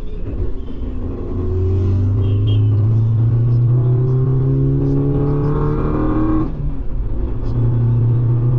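Suzuki Jimny engine, fitted with a cold air induction kit, accelerating hard: the revs climb steadily for several seconds, drop briefly at a gear change about six and a half seconds in, then climb again.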